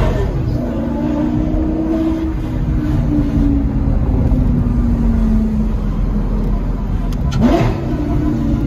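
Sports car engine heard from inside the cabin while driving, its note easing slowly down in pitch, then a quick short rev that rises sharply about seven and a half seconds in.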